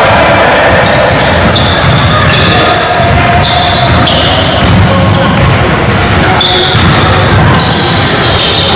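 Basketball bouncing on a hardwood gym floor during a pickup game, with players' voices echoing in the large hall.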